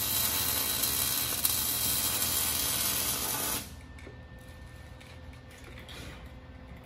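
Electric arc welding: a steady crackling hiss from the welding arc that stops abruptly after about three and a half seconds, leaving a faint steady hum.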